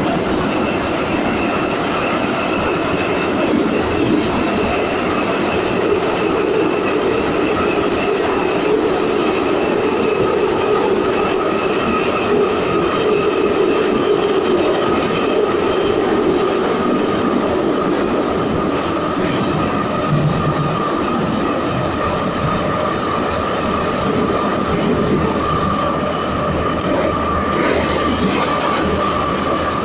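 Metro train of type 81-540.7/541.7 running at speed through the tunnel, heard from inside the carriage: a loud, even rumble of wheels on rail with a steady whine over it.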